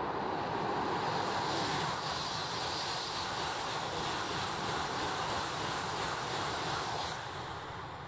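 Shinkansen bullet train passing at high speed: a steady, loud rushing of wheels and air that drops off about seven seconds in and then fades away.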